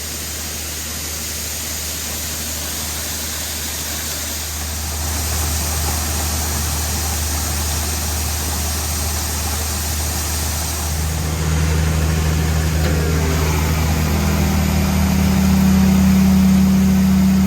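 Farm tractor engine running steadily, growing louder in steps, with a low hum that rises in pitch in the second half.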